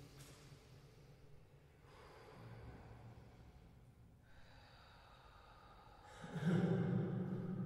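Soft breaths and faint vocal sounds, then about six seconds in a deep chanting voice begins, holding a low sustained tone in the manner of a mantra.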